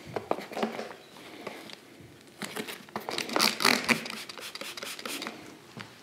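A Rain-X trigger spray bottle is spritzed several times in quick succession about halfway through, each spray a short hiss, among small clicks and handling sounds. An applicator pad then rubs on the windshield glass.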